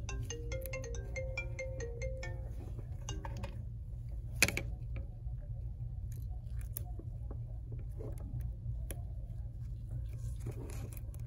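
A short electronic melody of stepped notes for the first three and a half seconds, over a steady low hum. Then small handling clicks of iPhone XS flex-cable connectors being pressed onto the logic board, with one sharp click about four and a half seconds in.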